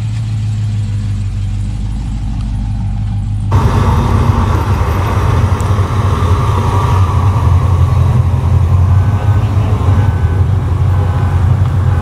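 Car engine idling with a steady low hum from a white Chevrolet Monte Carlo. About three and a half seconds in, the sound cuts abruptly to a louder engine from a blue early Chevy II Nova convertible driving slowly by.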